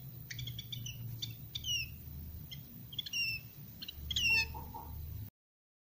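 Young sirtu chicks chirping: a scatter of short, high chirps and falling call notes, over a faint low hum. The sound cuts off suddenly near the end.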